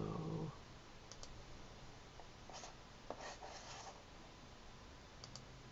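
Faint, scattered clicks and taps of a computer mouse and keyboard, a few spread over several seconds, after a brief low murmur of voice at the very start.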